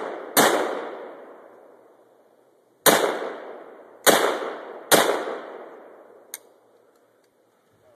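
AK-47 rifle fired in single shots: four shots at uneven spacing, each ringing out in a long echoing tail, then a small sharp click near the end as the rifle stops firing, which the shooters take for an empty magazine or a jam.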